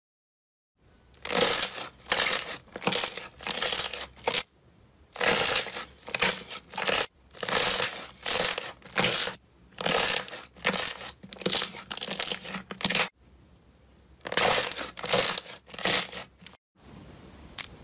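Pink slime being pressed, folded and stretched by hand, giving repeated squishing and crackling sounds about one to two a second in runs. It starts about a second in, pauses briefly about two-thirds of the way through, then gives way to a quieter steady hiss near the end.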